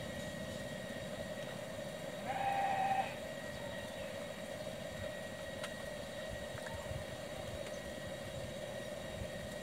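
A steady, even drone with a faint higher whine runs underneath, and about two seconds in a short held tone at one pitch, with overtones, sounds for under a second.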